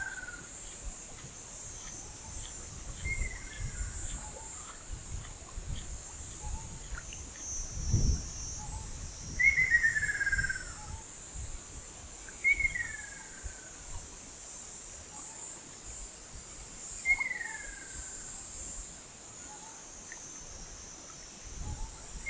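Ruddy kingfisher calling: a falling, rolling trill about a second long, repeated every few seconds. Behind it a steady high-pitched chorus of insects.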